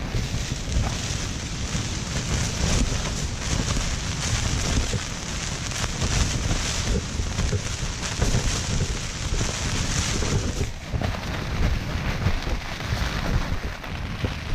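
Wind and rain beating on a backpacking tent, heard from inside: the fabric shakes and flaps in irregular gusts over a steady hiss of rain on the fly.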